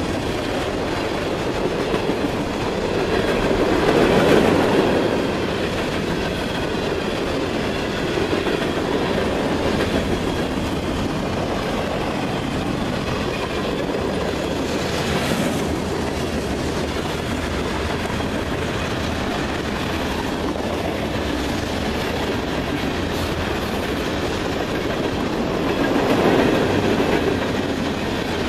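Freight train cars rolling past, their wheels clattering steadily over the rail joints, with two louder swells, about four seconds in and near the end.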